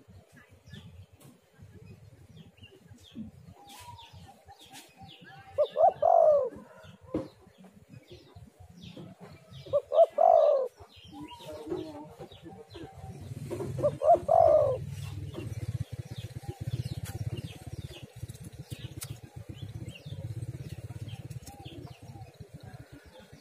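Spotted dove (tekukur) giving its cooing call three times, about four seconds apart, with faint chirps of small birds behind it. A low rumble comes in around the second half.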